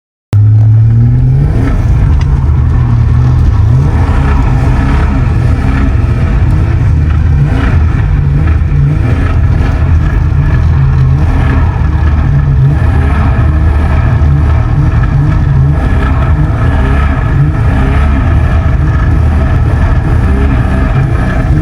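Car engine running loudly, its revs rising and falling in steps.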